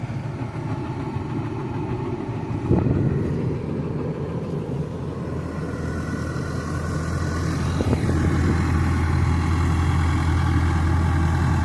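Pickup truck's 6.2-litre V8 running as the truck drives over a hay field, heard from inside the cab, with a steady low hum. There is a knock about three seconds in and another near eight seconds, after which the engine grows louder.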